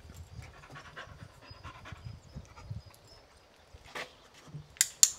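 Blue heeler panting rapidly. Near the end, three sharp clicks, the last two loudest.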